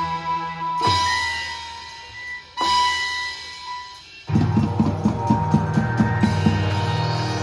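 Banjo-party band music: a held electronic keyboard melody with two loud cymbal crashes ringing out, then a little past halfway the drum kit and marching drums come in with a fast, steady beat under the keyboard.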